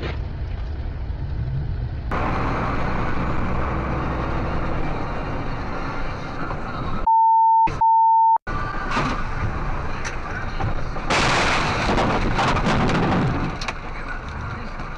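Car-interior road and engine noise from a dashcam. About seven seconds in it is cut out by a steady, high censor bleep lasting about a second and a half, with one brief break. Near the end comes a loud rushing noise of about two and a half seconds as the car runs off into deep snow on the verge.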